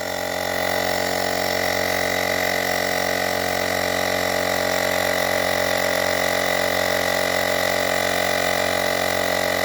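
Handheld battery-powered tyre inflator running steadily, its small compressor pumping up a motorcycle tyre, a constant mechanical hum that holds one pitch throughout.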